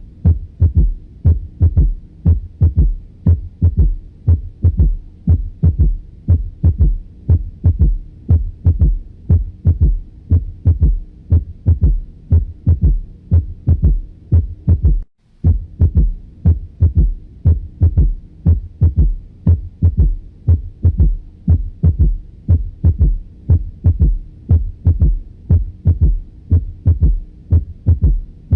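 Heartbeat heard through a stethoscope's bell: a steady rhythm of low thumps with a third heart sound (S3) just after the second sound, the low-pitched extra sound of a ventricular gallop. The recording breaks off for a moment about halfway through.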